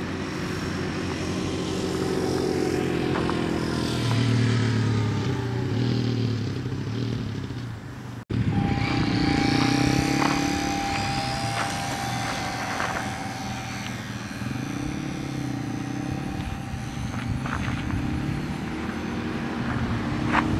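HobbyZone Super Cub S RC airplane's electric motor and propeller whining, the pitch gliding up and down with throttle and distance. It cuts out abruptly about eight seconds in, then comes back as a steadier whine.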